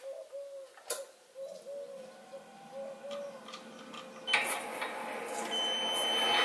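Sieg SC4 bench lathe switched on with a click about four seconds in, its four-jaw chuck spinning up and the machine sound rising steadily, with a thin high whine. Before that, only a few faint clicks.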